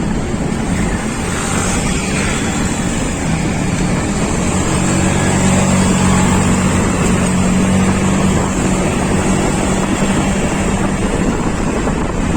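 A vehicle engine running steadily, with a constant hum, and wind noise on the microphone.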